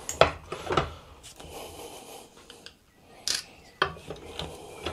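A thin metal pick prying and scraping at the case of a TPMS tyre pressure sensor clamped in a steel bench vice, with a few sharp clicks and scrapes.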